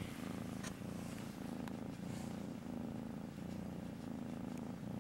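Domestic kitten purring steadily and continuously while being stroked, a low rapid rumble that eases slightly and resumes every second or so.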